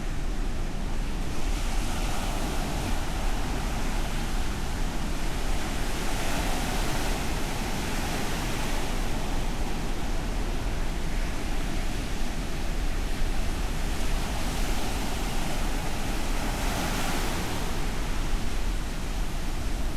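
Ocean surf washing onto a sandy beach in a continuous hiss, swelling louder three times as waves break, over a steady low rumble.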